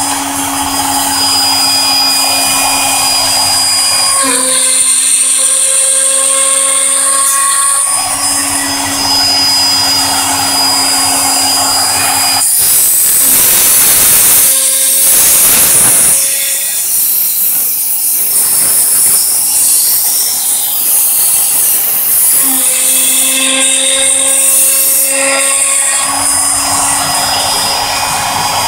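High-Z CNC-Step router spindle whining steadily while its small end mill cuts the metal mold plate, with the tone shifting as the cut changes. Midway, a loud hissing rush lasts about three seconds.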